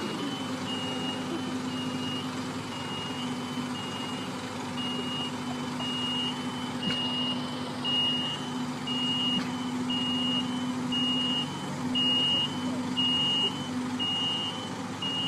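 Genie Z-60 articulating boom lift driving, its motion alarm beeping about twice a second over the steady hum of its engine.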